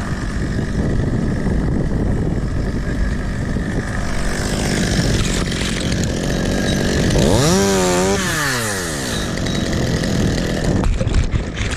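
Chainsaw running at idle, revved up once about seven seconds in and let fall back to idle.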